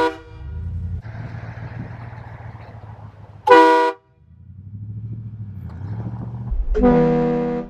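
Train horn fitted to a Ford Raptor pickup, blasting in short chords: the tail of one right at the start, a half-second blast about three and a half seconds in, and a longer, lower-pitched blast near the end. The truck's engine rumbles between the blasts.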